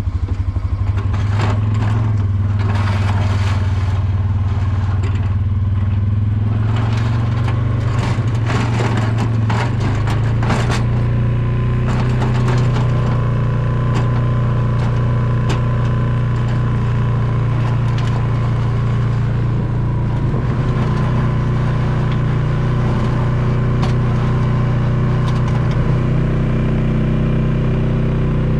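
ATV engine running, just started: steady at first with clicks and knocks over it, then it changes about ten seconds in as the quad pulls away and runs steadily under way.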